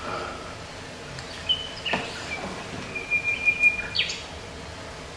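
Recorded birdsong played back in the theatre: a few short whistled chirps, then a long steady whistled note about three seconds in, ending in a quick chirp.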